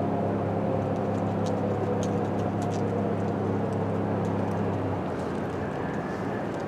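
Federal Signal 2001-SRNB rotating tornado siren winding down at the end of a test, its tone now low, faint and falling, over a steady low hum that drops in level about five seconds in.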